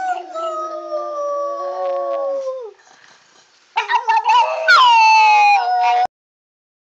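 Pug howling: a long, slowly falling howl, then after a short pause a second howl that rises and then falls away, in reply to the owner's questions.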